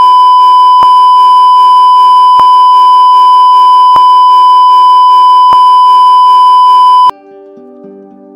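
A loud, steady, high-pitched electronic beep tone held for about seven seconds, then cut off suddenly, with faint clicks about every second and a half. Soft music plays faintly beneath it and carries on alone after the cut.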